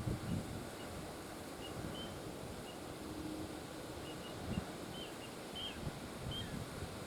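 Little ringed plovers giving short, high, slightly falling alarm calls over and over at uneven intervals, a sign that they are alarmed by crows close to their nest area. Strong wind rumbles low on the microphone.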